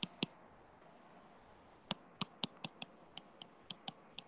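Stylus tip clicking against a tablet screen while writing by hand: two sharp clicks at the start, then, after a pause of over a second, a quick run of about ten clicks, several a second.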